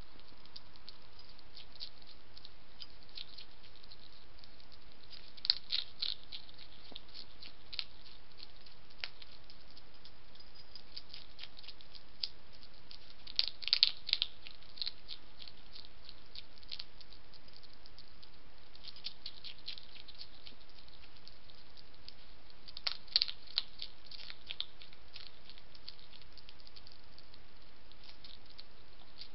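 A wild European hedgehog chewing and crunching food from a dish, a patter of small crisp clicks over a steady hiss, with three louder spells of crunching: about a fifth of the way in, near the middle, and about three-quarters through.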